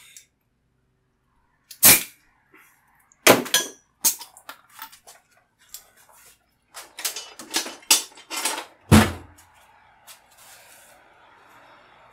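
Motorcycle tire beads popping onto an alloy rim under about 40 psi of air: several loud, sharp cracks, the loudest and deepest about nine seconds in. A faint steady noise follows near the end.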